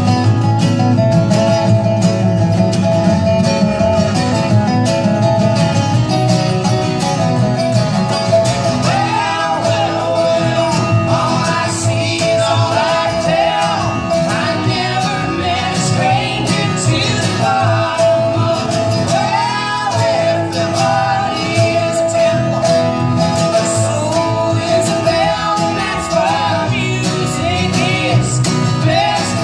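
Acoustic folk string band playing an instrumental break: strummed and picked acoustic guitar over a bass line, with a fiddle-like lead that holds a long steady note and, from about a third of the way in, plays many quick sliding melodic phrases above it.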